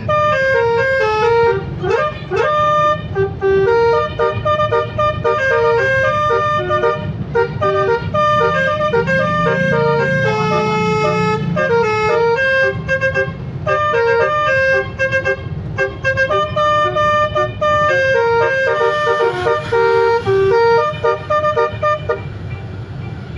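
A bus's basuri telolet horn playing a tune of quickly changing multi-tone notes, over the low rumble of the bus engine.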